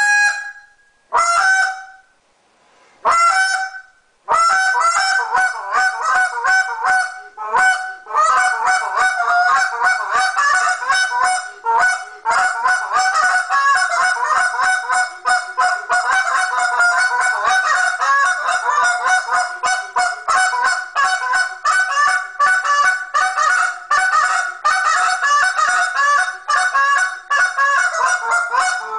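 Goose call (a Super Mag short-reed call) blown in a calling routine. It opens with three separate drawn-out honks, then from about four seconds runs into a fast, unbroken string of short clucks and honks to the end.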